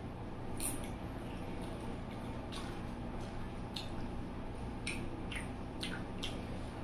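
Close-up eating sounds: a person chewing with the mouth, making several short sharp clicks and smacks spread over a few seconds, over a steady low background hum.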